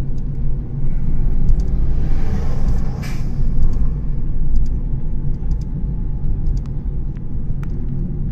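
Road noise inside a moving car: a steady low rumble of engine and tyres, with the rising whoosh of an oncoming truck passing about three seconds in.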